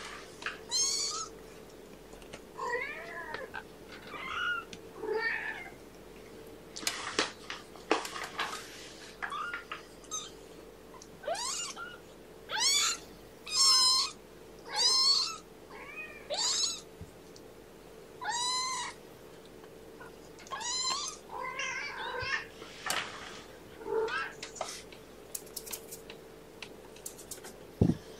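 Three-week-old kittens mewing again and again, high-pitched calls about every second, some short and some drawn out with a pitch that rises and falls.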